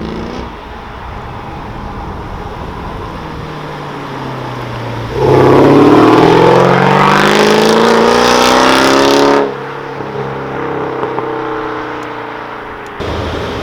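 A supercar engine revving up and accelerating hard, its note climbing in pitch. It turns loud for about four seconds at full throttle, then cuts off suddenly to a lower engine sound.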